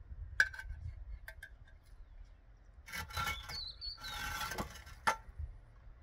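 Dry wood being handled: a few sharp clicks, then two rough scraping, rubbing passes about three and four seconds in, and a last sharp knock near the end.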